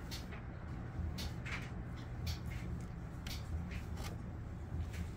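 Light, scattered ticks and rustles of hands placing strips of 3M double-sided tape on a body scoop, over a steady low hum.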